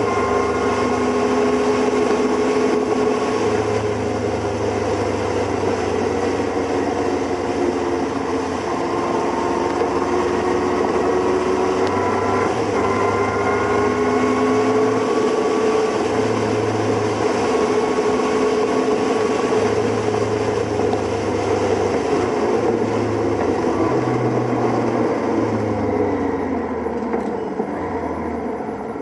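Motorcycle engines running at road speed, their note slowly rising and falling with the throttle over wind and road noise. It eases off and quietens near the end as the bike slows.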